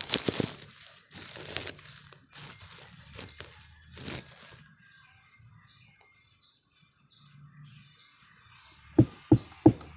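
Mallet beating a sugar palm flower stalk (manggar). There are handling knocks at the start and a single knock about four seconds in. From about nine seconds a steady run of strikes follows, about three a second. This is the first beating of a fresh stalk, done to bring on the sap flow for tapping.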